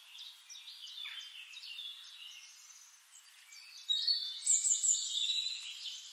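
Songbirds chirping and singing, busier and louder for a couple of seconds from about four seconds in.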